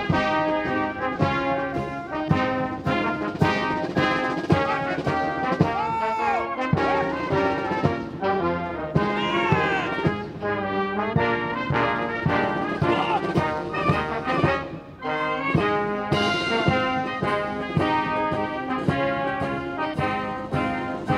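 Military brass band playing a march, held brass chords over a steady beat of about two strokes a second.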